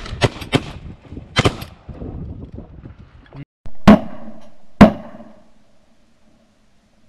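Shotguns firing at ducks: a quick volley of several shots in the first second and a half, then after a short break two louder single shots about a second apart, each trailing off with an echo.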